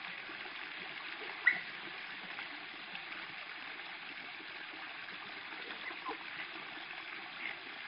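Lake water splashing and lapping as someone swims or wades, over a steady rush of water noise, with one sharp splash or knock about a second and a half in.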